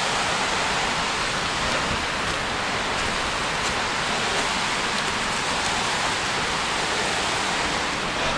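Steady rushing of a stream cascading over rocks in small waterfalls.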